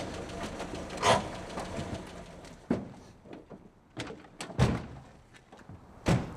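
Car door being opened as the driver gets out: a series of separate clunks and thuds, the loudest about four and a half seconds in.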